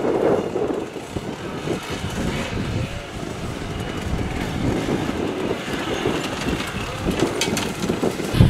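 Enduro dirt bike engine revving and labouring as the rider works up rough terrain, its note rising and falling with the throttle, with a few sharp knocks near the end.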